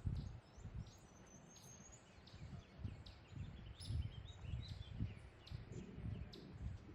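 Small birds chirping, with a short trill about a second and a half in, over soft low thuds of footsteps on a trail, about two a second.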